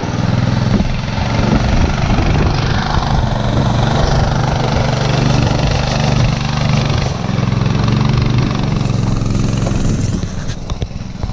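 Restored Murray go-kart's brand-new small engine running under way as the kart drives off across gravel, a steady engine drone.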